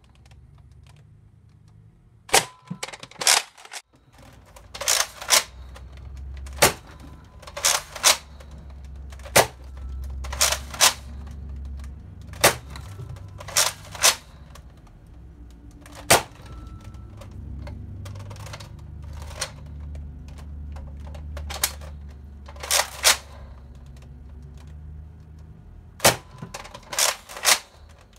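Nerf Rival Helios, a spring-powered foam-ball blaster, fired again and again at a paper target: about fifteen sharp snaps and clacks, many in quick pairs, as the blaster is primed and fired and the balls hit the target and the shelf behind it.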